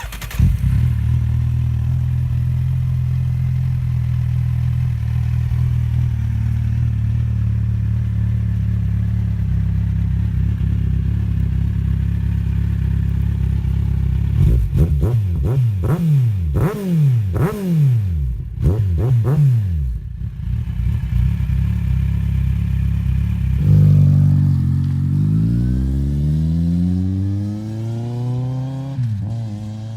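2007 Kawasaki Z1000's inline-four engine through DANMOTO Carbon GP aftermarket mufflers, idling steadily, then blipped a handful of times in quick rises and falls of revs. It then accelerates with a long rising pitch, drops briefly with a gear change near the end, and climbs again.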